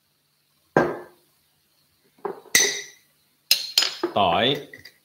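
Glass bottles and jars handled on a kitchen counter: a single clink about a second in, then a cluster of sharp knocks and clinks from about two seconds on, with a brief squeak near the end.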